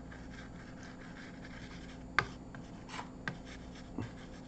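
Palette knife scraping and dabbing acrylic paint on a canvas: faint rubbing and scratching with a few sharp taps, the loudest about two seconds in.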